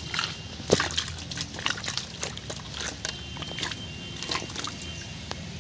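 Water sloshing and splashing in a metal bucket of small fish as a hand rummages through them, with many irregular sharp splashes.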